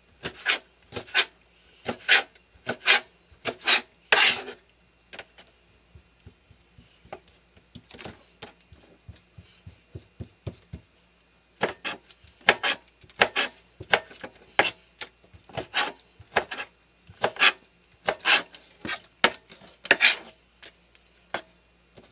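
Kitchen knife chopping squid into strips on a plastic cutting board: sharp knocks of the blade hitting the board, about two a second. A strong run of cuts opens, then a few seconds of lighter cuts, then a second strong run until near the end.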